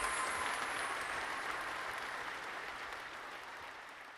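Audience applause, fading out steadily.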